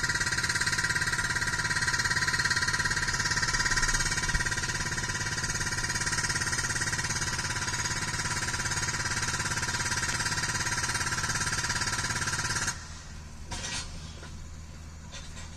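Hydraulic breaker on a CAT 305 mini excavator hammering rock in a fast, steady rattle, with the machine's engine and hydraulics running under load. Near the end the hammering stops suddenly, leaving a few scattered knocks.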